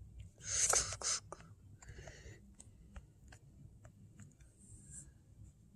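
Quiet room with a short breathy rush of noise about half a second in, then faint scattered small clicks of handling.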